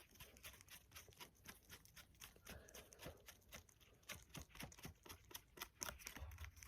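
Faint, quick irregular tapping and clicking of small objects handled close to the microphone.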